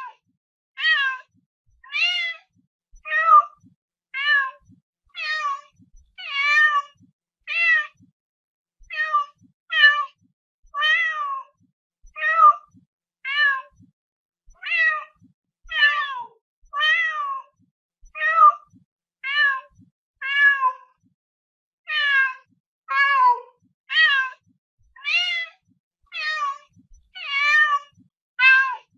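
Domestic cat meowing over and over, about one short meow a second with brief silences between, each call rising and falling in pitch.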